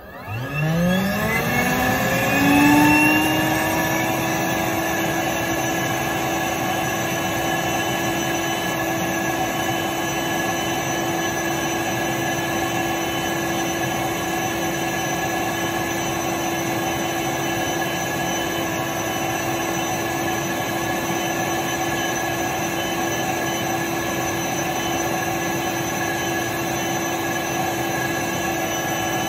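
Upright vacuum cleaner switched on: its motor spins up with a rising whine over the first two or three seconds, then runs steadily with a constant hum and rush of air.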